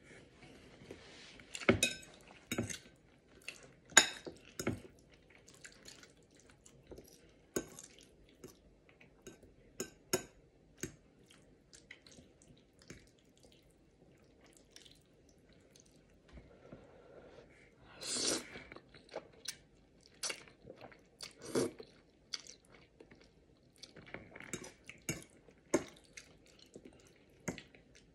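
Eating sounds: a metal fork clinking and scraping against a ceramic bowl as spaghetti is twirled and lifted, with chewing in between. The sharp clicks come every second or two, and a longer noisy patch sits a little past the middle.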